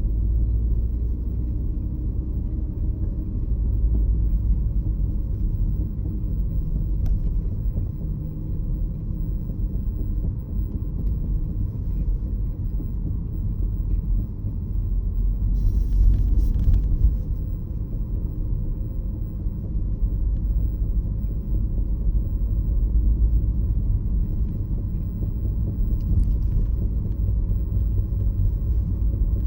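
Peugeot 508 SW driving, heard from inside: a steady low road and drivetrain rumble with a faint thin tone drifting slowly above it. The owner hears an abnormal noise in it. A brief hiss comes about sixteen seconds in.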